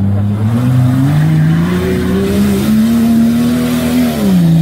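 SUV engine revving hard under load as it climbs a steep, slippery slope. The revs climb over the first couple of seconds, hold, then drop about four seconds in.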